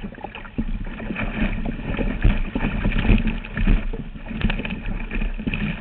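Kayak on the water: irregular splashing and sloshing from paddling, with deep rumbling on the microphone, busiest in the middle.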